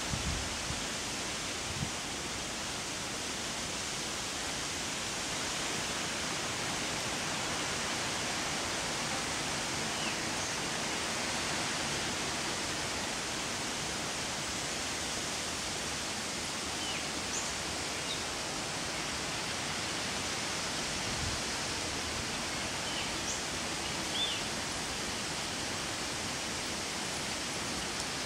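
Steady rushing outdoor background noise, with a few faint, short high bird chirps scattered through it.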